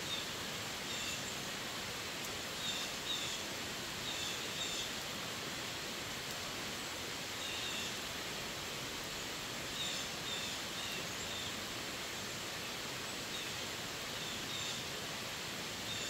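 Steady rain falling on the leaves of a forest, an even hiss. A bird calls now and then over it in short, high chirps in small groups every few seconds.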